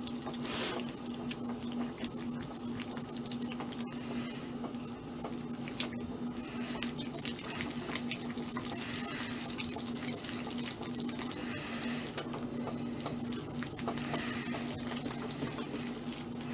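A spoon stirring a thick, melted fudge mixture of baking chips and sweetened condensed milk in a mixing bowl: continuous wet scraping and squelching, over a steady low hum.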